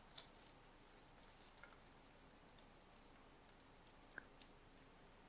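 Near silence with a few faint, brief rustles and ticks of ribbon strands being handled and woven together by fingers, mostly in the first second and a half and again twice around four seconds in.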